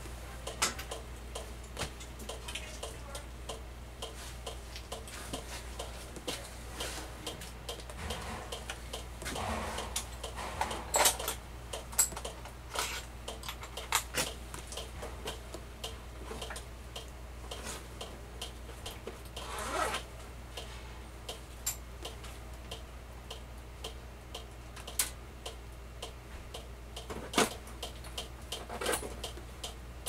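Scattered small clicks, taps and rustles of hand work on an evaporator fan-motor mount with its screws and hardware, over a steady low hum.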